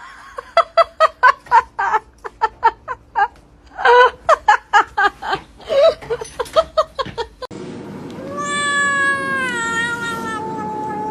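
A cat meowing in a rapid string of short meows, about three a second, followed by one long drawn-out yowl that slides slowly down in pitch.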